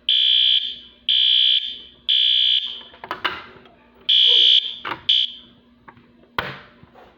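Fire alarm sounding high-pitched beeps in the three-beep temporal evacuation pattern: three half-second beeps, a pause, then one more beep and a brief chirp before it stops about five seconds in. A few sharp knocks come in between and after.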